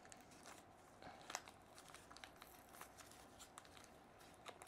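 Faint crinkling and rustling of packaging wrap being opened by hand, in scattered small crackles, with one louder crackle about a second in.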